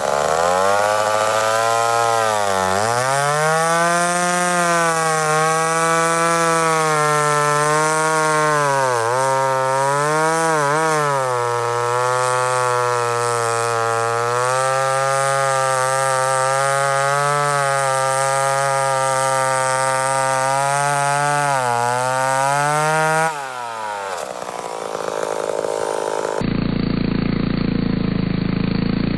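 Two-stroke chainsaw at full throttle cutting through hard black locust, its engine pitch sagging under load and recovering several times. Near the end the saw's sound stops abruptly and gives way to a lower, duller engine sound.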